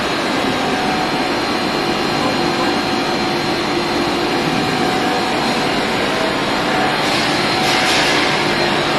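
Machinery of an industrial ammonia refrigeration plant running: a loud, steady hum and hiss with a thin high whine over it, the hiss swelling briefly about seven seconds in.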